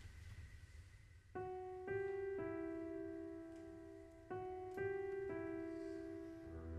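Improvised solo piano: soft notes struck in two groups of three, the first starting about a second and a half in and the second about four seconds in, each left to ring and fade.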